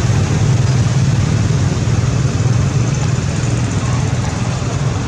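A steady, loud low rumble with an even hiss over it, with no clear rhythm or change.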